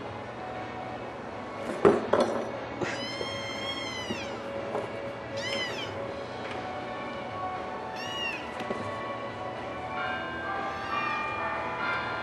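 American Shorthair kitten meowing: four high-pitched meows, the first and longest about three seconds in, shorter ones about five and a half and eight seconds in, and a faint one near the end. A sharp knock about two seconds in.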